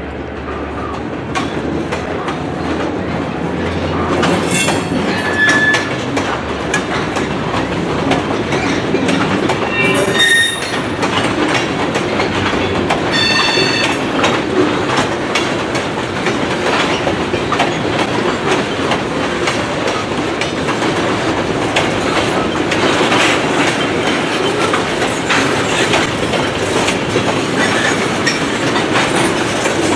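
Freight cars of a shoved transfer train, covered hoppers and tank cars, rolling past: steel wheels clattering over rail joints, with high-pitched flange squeals about five seconds in, at ten seconds and again at about thirteen seconds.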